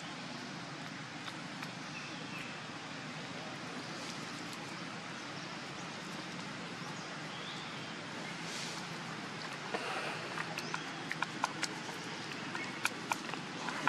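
Steady outdoor background hiss. From about ten seconds in, a scatter of small sharp clicks and crackles.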